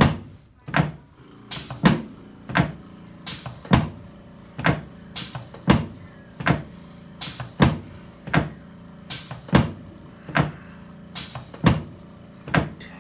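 A steady run of sharp knocks, about three every two seconds.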